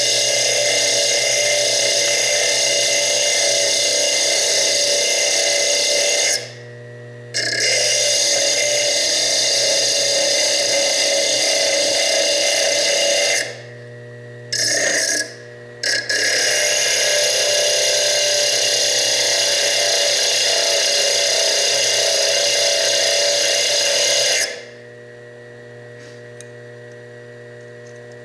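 Foredom bench lathe running steadily with a whine, a small diamond slitting disc on it for cutting into fire agate. It stops briefly three times and shuts off near the end, leaving a low hum.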